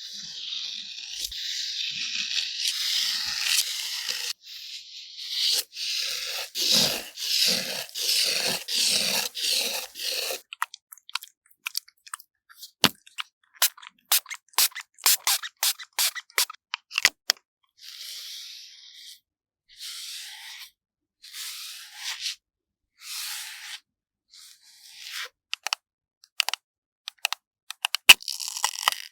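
ASMR makeup sounds of tools worked over a green melon's rind. First comes about ten seconds of continuous scratchy scraping and crunching, then a quick run of sharp clicks and taps. After that come short, separate scratchy strokes every second or two, with more clicks near the end.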